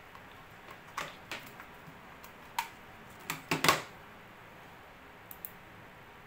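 A handful of sharp clicks and light knocks from a LAN cable and its RJ45 plugs being handled, the loudest cluster about three and a half seconds in, then two faint ticks.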